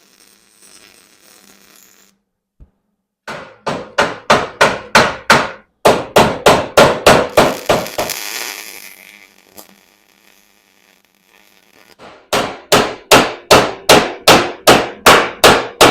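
Hammer blows on a steel tab of an ATV frame bracket, bending it over: a steady run of metal strikes about three a second, a pause, then another steady run.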